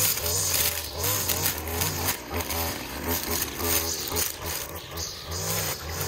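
Gas-powered string trimmer running and revved up and down in short bursts, its line cutting through the leafy stems of a bush.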